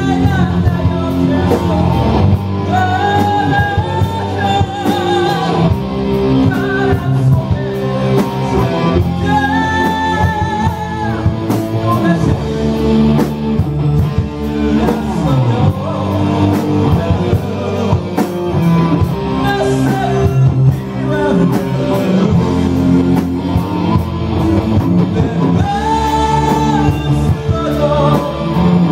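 Live rock band playing loudly: a man sings a wavering melody over amplified electric guitars and a drum kit.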